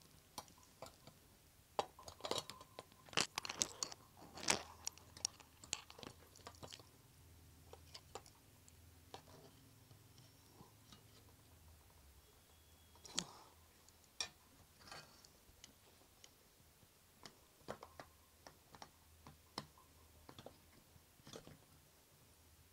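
Faint irregular clicks, taps and scrapes of metal on metal as a 3.5-inch SATA hard drive is slid into a frame of slotted steel rails and screwed in place with a screwdriver. The knocks are busiest in the first few seconds, then come as sparse single ticks.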